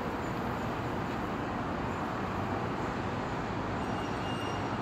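Steady outdoor background rush, even and featureless, with no distinct events. A faint high tone sounds briefly about four seconds in.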